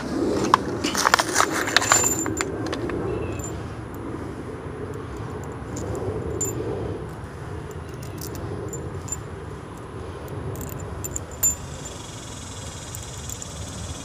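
Small metal fasteners clinking and jingling as they are handled and sorted, busiest in the first two seconds, then scattered light ticks and one louder knock near the end, over a low steady rumble.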